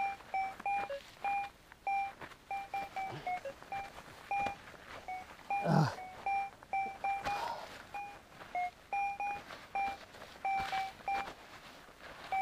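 Metal detector, an AKA Berkut 5, giving short repeated beeps, mostly on one mid-high tone with a few lower-pitched ones, two or three a second and irregular, as it picks up a metal target in the dug soil. Faint scraping of hands in soil and dry grass between the beeps.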